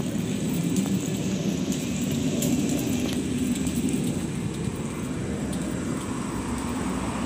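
Steady low rumble of outdoor street noise, picked up by a hand-held phone while walking.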